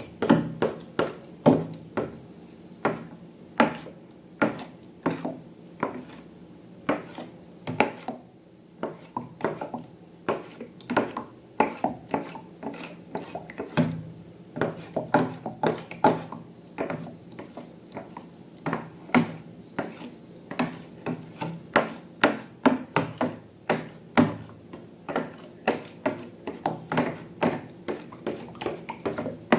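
Slime being mixed and worked, giving an irregular run of sharp wet clicks and pops, two or three a second, with some taps against its container.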